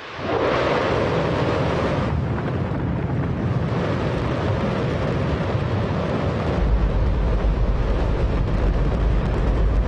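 Hydrogen-oxygen rocket engine firing on a test stand: a loud, continuous rushing rumble that starts suddenly, with a deeper rumble building up about two-thirds of the way in. It is described as the loudest sound you could possibly conceive.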